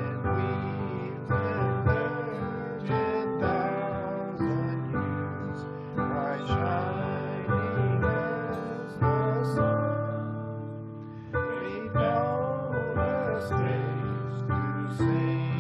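Music: a slow song with strummed acoustic guitar and a singing voice.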